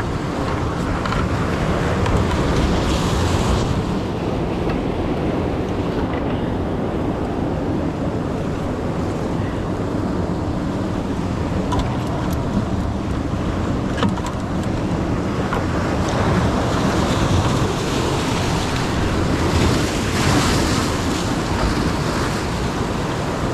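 Ocean waves washing and breaking against the jetty, with wind on the microphone; the surf swells louder about three seconds in and again about twenty seconds in.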